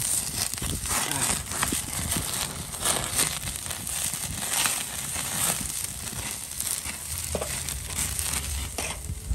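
Skewered duck kebab pieces crackling and sizzling over hot charcoal, with lemon juice dripping onto the meat and coals, a dense, steady run of small pops and ticks.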